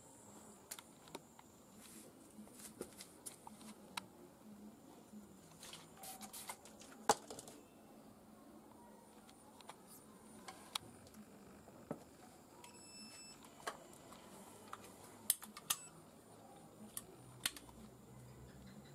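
Light scattered clicks and taps of hands handling an optical fiber and a fiber cleaver, the sharpest about seven seconds in and twice around fifteen seconds. A brief high beep sounds about thirteen seconds in.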